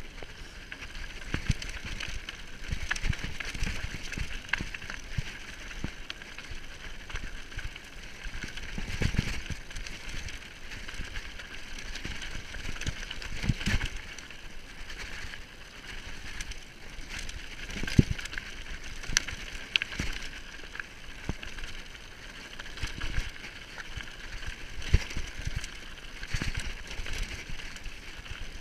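Mountain bike rolling fast down a rocky dirt singletrack: a steady rushing hiss of tyres and riding, broken by frequent irregular knocks and rattles as the wheels hit stones, with the sharpest knocks about two-thirds and seven-eighths of the way through.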